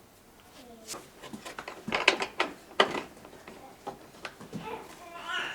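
Irregular clicks and knocks of a wooden door and its latch hardware being handled, the loudest around two and three seconds in.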